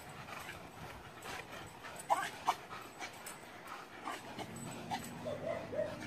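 Small dog making short, high whining yelps, two of them about two seconds in, with fainter whines near the end.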